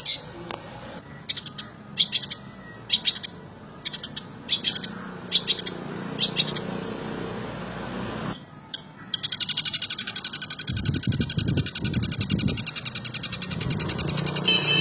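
Long-tailed shrike (cendet) singing. Sharp high chirps come about once or twice a second at first, then from about nine seconds in it switches to a fast, continuous rattling trill.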